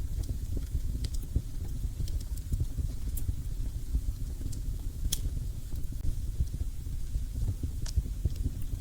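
Fire burning in a fireplace: a steady low rumble with scattered sharp crackles and pops, the loudest pop about five seconds in.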